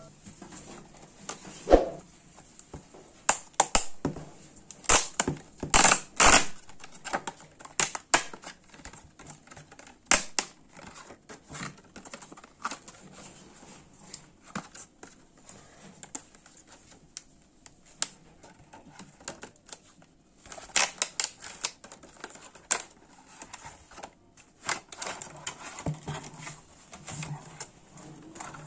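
Clear plastic clamshell mouse packaging being handled and pried open by hand: irregular crackles, clicks and snaps of the thin plastic, in bunches with quieter handling between.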